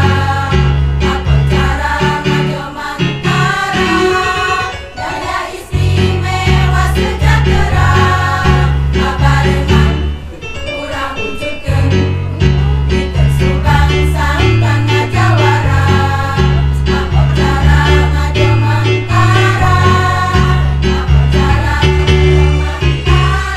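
Women's choir singing a song together over an accompaniment with a steady, stepping bass line.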